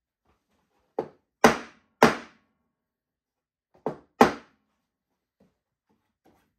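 Mallet striking the glued oak boards of a panel clamped in four-way pressure clamps: five short knocks, three about a second in and two more near four seconds, the first of each group lighter.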